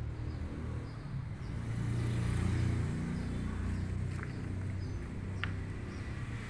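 Low engine rumble of a passing vehicle, swelling to its loudest about two and a half seconds in and then easing off, with a few faint short high clicks later on.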